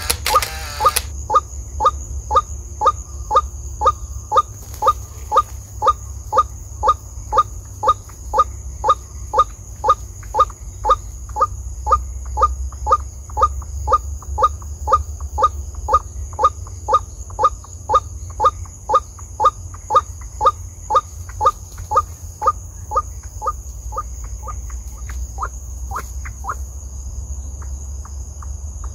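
White-breasted waterhen (ruak-ruak) calling: a long, monotonous series of short, sharp notes at about two a second, loud for most of the stretch and growing fainter and more irregular near the end. A steady high insect drone runs underneath.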